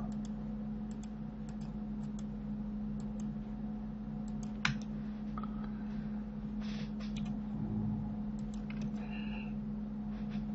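Scattered clicks of a computer keyboard and mouse at a desk, with one sharper click about halfway through, over a steady low hum.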